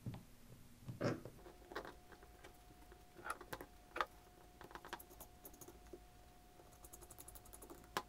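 Faint, irregular clicks and light taps of small metal parts and a screwdriver against a spinning reel's bail arm as the line roller is reassembled.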